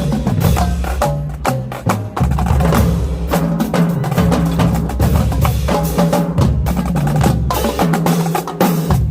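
High school marching drumline playing: rapid sharp snare and stick strokes over tuned marching bass drums sounding at several different pitches.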